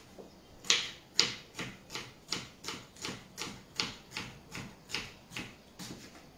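Kitchen knife chopping celery on a wooden cutting board: about fifteen even strokes at nearly three a second, starting about a second in.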